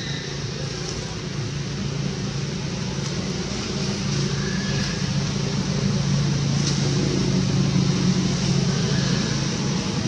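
Steady low engine hum of motor traffic, growing somewhat louder past the middle, with a few faint bird chirps.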